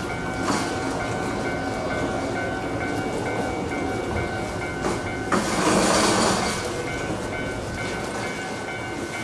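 Electric train pulling away from a station platform, its wheels clacking over the rail joints, with a steady thin tone. A louder rushing burst comes about five and a half seconds in and lasts about a second and a half.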